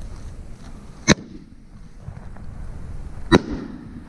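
An aerial firework shell: a sharp bang as it is fired from its tube about a second in, then a louder bang a little over two seconds later as it bursts, with a short echo.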